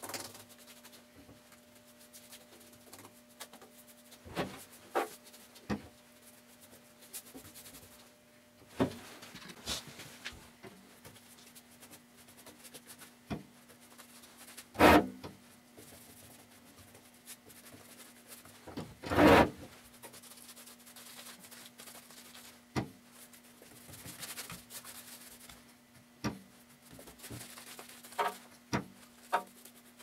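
Paintbrush rubbing thick black paint onto a metal bucket, short scraping strokes with scattered light knocks. Two louder clunks come about halfway through, over a faint steady hum.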